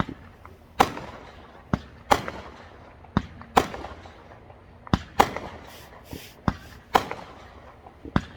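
Fireworks going off: about a dozen sharp bangs at irregular intervals, each fading briefly after the crack.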